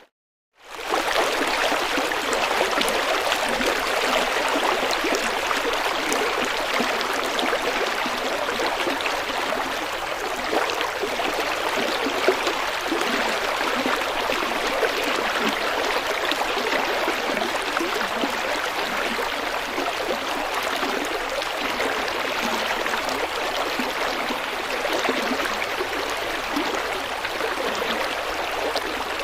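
River water flowing with a steady rushing and gurgling. It drops out to silence for a moment at the very start, then resumes.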